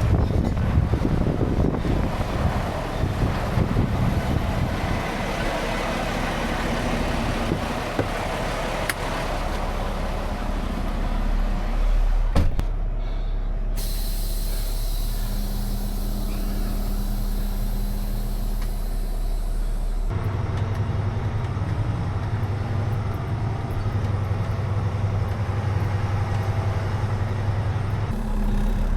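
Heavy diesel engines of a big rig and an excavator running, with a steady low engine note that changes abruptly several times.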